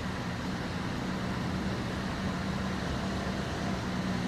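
Steady, even hum of a running motor vehicle, like engine and road noise heard from a moving car.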